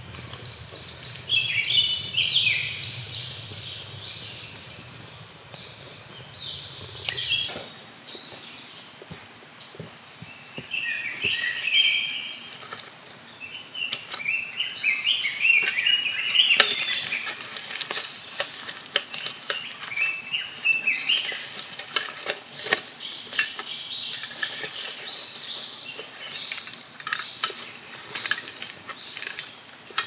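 Small birds singing in repeated chirping phrases, with scattered light clinks and knocks of camping gear being handled, more of them in the second half.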